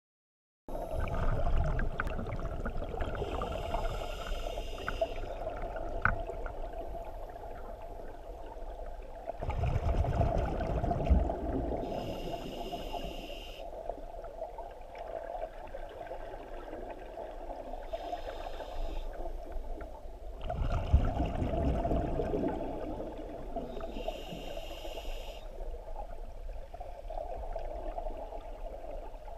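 Scuba regulator breathing recorded underwater: a hissing inhalation through the regulator about every six seconds, and two louder bubbling exhalations, over a steady hum.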